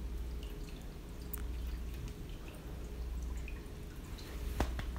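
Pet water fountain trickling and dripping faintly over a low steady hum, with one sharp click near the end.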